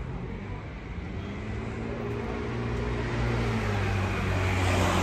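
A motor vehicle's engine running close by, its hum growing louder over the last few seconds as it draws near.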